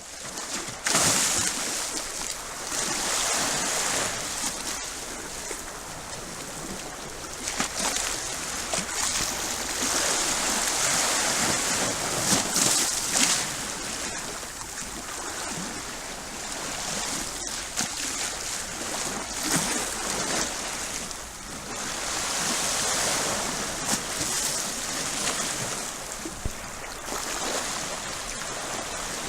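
Sea waves breaking and washing in at high tide, the surf swelling and easing every few seconds.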